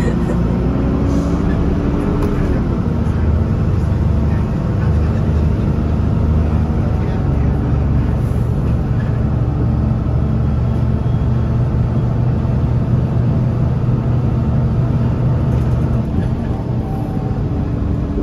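Alexander Dennis Enviro300 bus's diesel engine running, heard from the rear seats inside the saloon. Its pitch drops in the first few seconds, then holds steady before changing again near the end.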